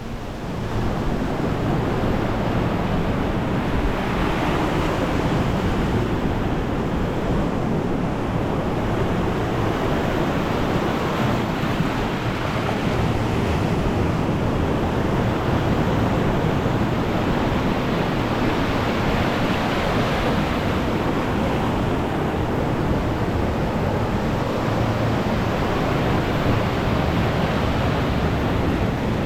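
Sea waves breaking on the beach in a continuous wash of surf, with wind rumbling on the microphone.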